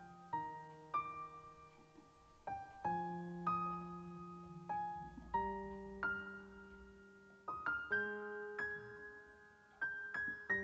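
Quiet background piano music: single notes and chords struck every half second or so, each left to fade.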